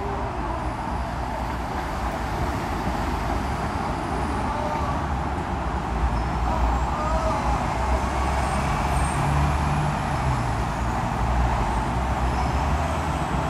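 Steady rumble and hiss of road traffic, unbroken throughout.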